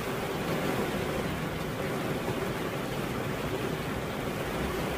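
Steady rain falling, an even dense hiss with no single drops or other sounds standing out.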